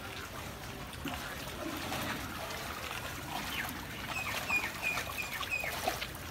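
Floodwater trickling and splashing, a steady watery hiss. About two-thirds of the way through, a bird calls a quick run of five short, high chirps.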